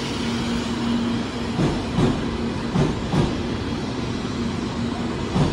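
JR West 700 series Hikari Rail Star Shinkansen train rolling past at the platform: a steady rumble and hiss of wheels on rail with paired thuds as each set of wheels passes, over a steady hum that stops about five seconds in.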